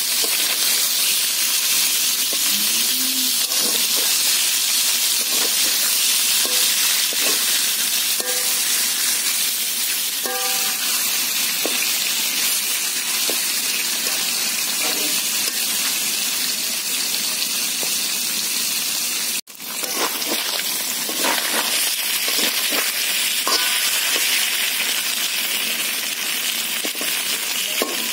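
Oil sizzling steadily around turmeric-and-salt-coated spotted snakehead (taki) fish pieces shallow-frying in a steel wok, with occasional scrapes and knocks of a metal spatula against the pan. The sizzle cuts out for a moment about two-thirds of the way through.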